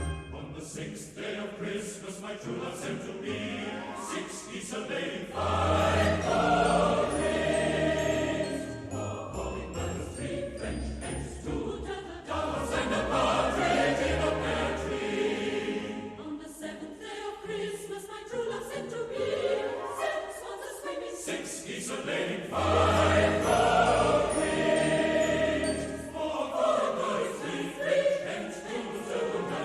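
Background music: a choir singing with instrumental accompaniment and bell-like high notes.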